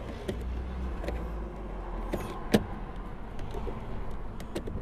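Plastic clicks and knocks as a car's electric mirror switch is pressed back into its place in the door trim, with one sharp click about two and a half seconds in, over a steady low rumble.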